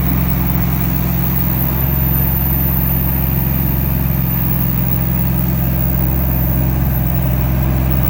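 Mini skid steer's engine running steadily at a constant speed.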